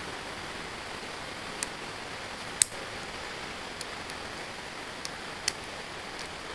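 Steady hiss of room noise, broken by a few sharp ticks; the loudest tick comes about two and a half seconds in.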